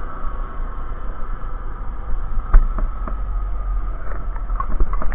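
Motorcycle riding noise heard from an onboard camera: steady wind and engine rumble with a few short knocks from bumps.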